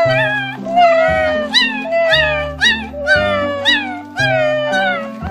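Chihuahua puppy giving a string of short, high, howling cries, each falling in pitch, about two a second, over background music.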